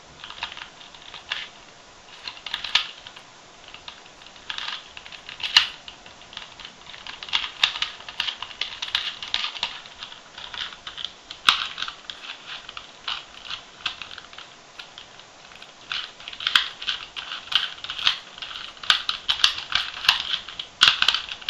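A 2x2x2 Rubik's cube being turned fast by hand: its plastic layers click and clack in quick flurries with short pauses between, busiest in the second half.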